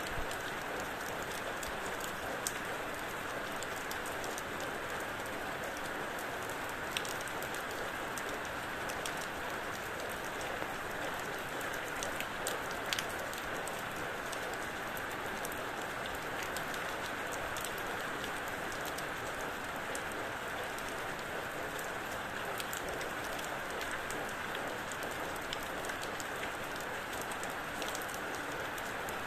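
Steady rain falling, an even hiss with scattered louder drip ticks.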